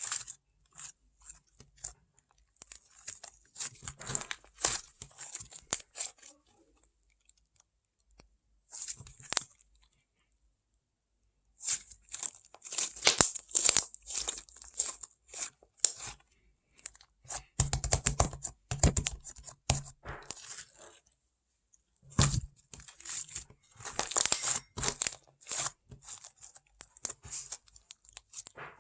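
Paper being folded and creased by hand: irregular crinkling and crackling in bursts, with short pauses between them.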